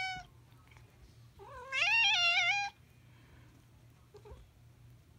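Domestic cat meowing: the tail end of one meow at the start, then one long meow about one and a half seconds in that rises in pitch and then wavers.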